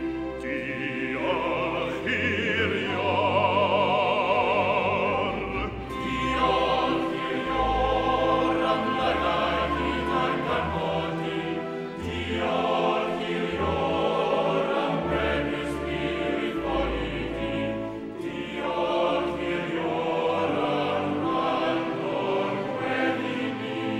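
Music: a Welsh hymn sung in a classical, operatic style with choir, the voice holding long notes with a wide vibrato.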